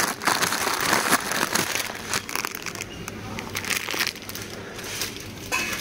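Plastic instant-noodle packets, Indomie Mi Goreng, crinkling irregularly as they are handled and pulled off a wire-fronted shelf.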